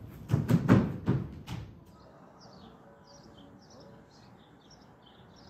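Feet stepping and thudding on a stage floor during push-hands practice, several thumps in the first two seconds. Then faint outdoor background with small birds chirping.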